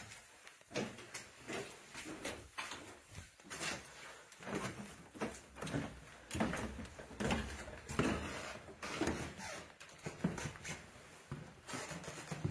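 Footsteps and shuffling of people climbing a staircase: an uneven run of knocks and scuffs.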